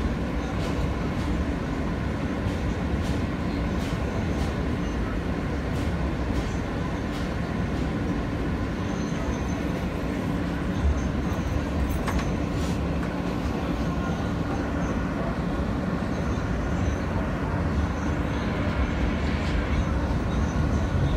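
New York City Subway J train running along elevated track, heard from inside the car: a steady rumble of wheels and running gear with scattered sharp clicks.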